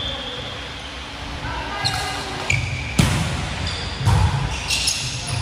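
Volleyball rally on a hardwood gym court: the ball is struck sharply about three seconds in, with a few short sneaker squeaks on the floor and players calling out.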